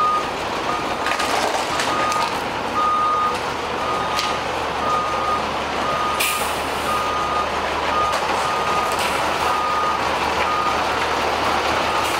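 Truck's reversing alarm beeping, about one beep a second, over a steady engine hum, with a few sharp knocks and clatter of wooden boards.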